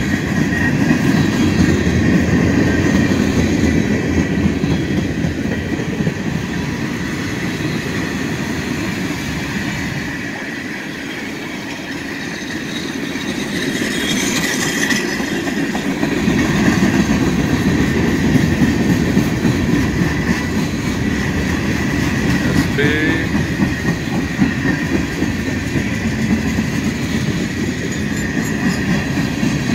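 Freight cars of a Union Pacific train rolling past close by: a steady rumble and clatter of steel wheels on the rails, with a thin, steady high squeal from the wheels. The rumble eases off for a few seconds in the middle, then comes back.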